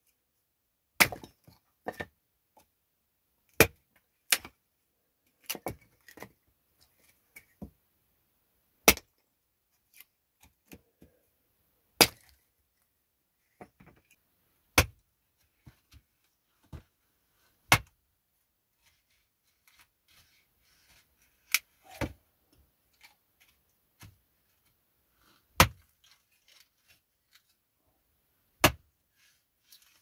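Hatchet splitting small sticks of kindling on a wooden chopping block: about twenty sharp chopping knocks, irregularly spaced from half a second to a few seconds apart.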